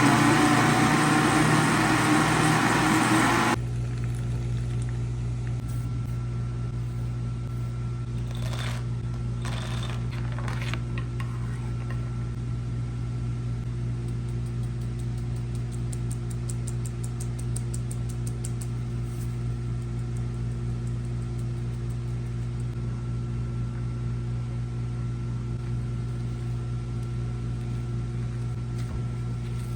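Electric blender motor running loudly, then cutting off abruptly about three and a half seconds in. A steady low hum follows, with a few light knocks around nine to eleven seconds in.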